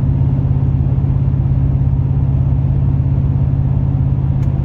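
Engine and exhaust of a 2021 Chevrolet Silverado's 6.2-litre V8, heard inside the cab while pulling up a grade at about 2000 rpm, straight-piped with the mufflers deleted and the resonators left on. A steady low hum over road noise.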